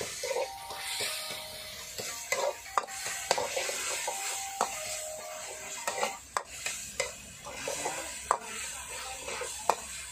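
Steel wok ladle stirring and scraping diced vegetables frying in oil in a wok, with a steady sizzle and frequent sharp clinks of metal on metal.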